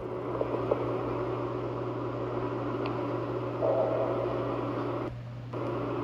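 A steady low hum and hiss inside a cave, with a faint howl-like tone joining about three and a half seconds in and fading out after a second or so. This is the unexplained sound presented as a ghostly creature howling inside the cave.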